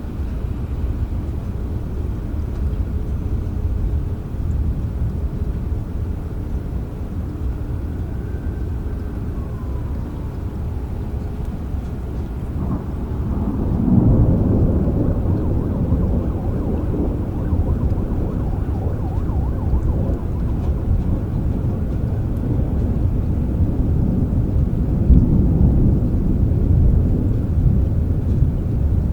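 Rain with low, rumbling thunder, the rumble growing louder about halfway through and swelling again near the end.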